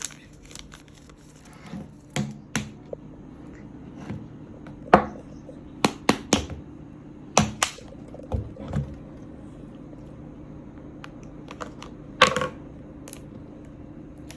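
Scattered clicks, taps and knocks of small objects being handled over a steady low hum, with the loudest knocks about five seconds in and again near twelve seconds.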